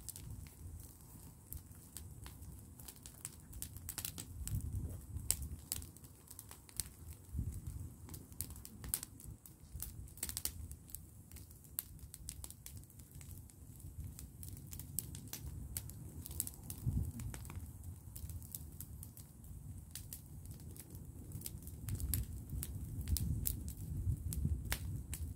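Brushwood bonfire crackling, with many sharp irregular pops and snaps over a low rumble.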